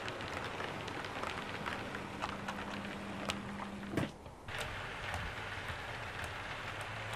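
Model railway train running on the layout's track: dense fine clicking and crackle of small wheels on the rails over a steady electric-motor hum. The sound drops out for a moment about four seconds in, and a lower hum carries on after it.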